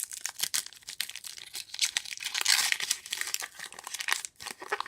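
Foil wrapper of a baseball card pack being torn open and crinkled by hand, a busy run of sharp crackles, loudest about halfway through.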